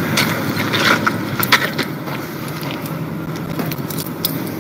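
Steady outdoor hum, with scattered small clicks and jingles of metal gear being handled.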